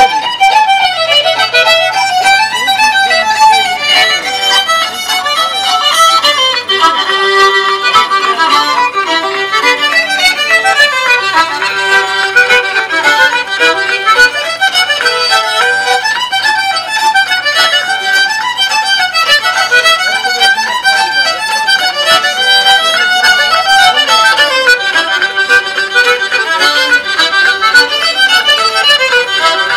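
Fiddle music with a quick run of notes over a steady bass line.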